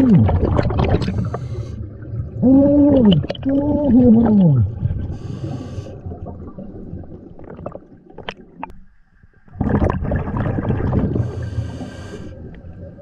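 Underwater sound of a diver's bubbles and water gurgling, with three short pitched tones that rise and then fall in the first five seconds, and a loud burst of bubbling noise from about ten seconds in.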